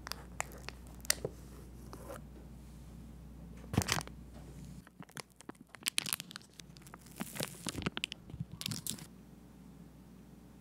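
Parchment paper crinkling and rustling as it is handled and peeled away from the sides of a set cheesecake. The crackles come in scattered bursts, with one louder burst about four seconds in and a dense run of crinkling from about five to nine seconds.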